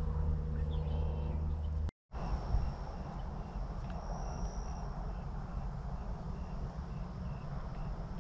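Outdoor background: a steady low rumble with a faint, high chirp repeating about twice a second. The sound drops out completely for a moment about two seconds in.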